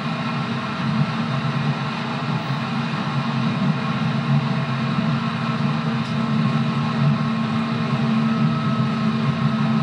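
JR 211 series electric train running at a steady speed, the drone of the ride mixed with the hum of its outer-fan traction motors, holding several steady tones without rising or falling.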